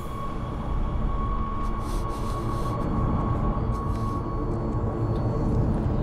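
Low, rumbling background score under a dramatic pause, with a thin held high note that fades out about four seconds in.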